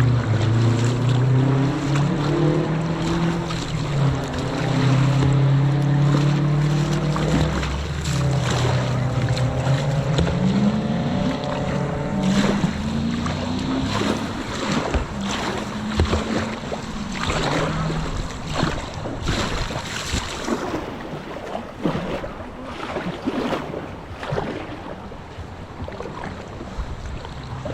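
Kayak paddle strokes splashing in river water over a steady rush of water and wind on the microphone. A wavering pitched hum rises and falls through the first two-thirds, then fades.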